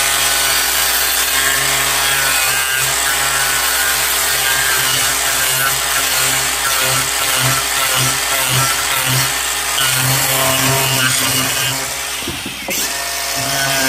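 Cordless angle grinder fitted with a chainsaw-chain wood carving disc, its motor whining as the chain rasps into the end of a wooden board. The cutting sound swells and eases as the chain bites, with a brief lull near the end.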